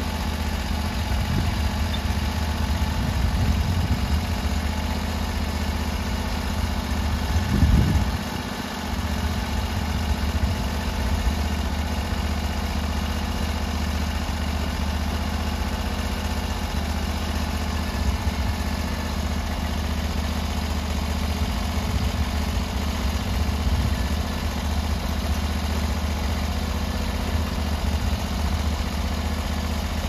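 Norwood LumberMax HD38 band sawmill's engine running steadily under load as its band blade cuts along a maple log. About eight seconds in the sound briefly jumps louder, then dips for a moment.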